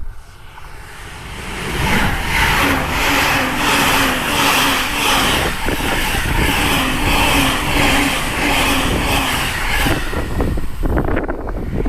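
E259 series Narita Express electric trains passing at speed. The rush of wheels and cars on the rails builds over the first two seconds, holds steady and loud until about ten seconds in, then drops away.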